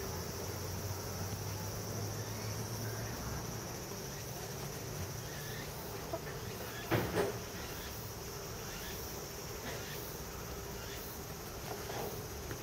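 Steady high-pitched insect chorus, with a couple of short knocks about halfway through.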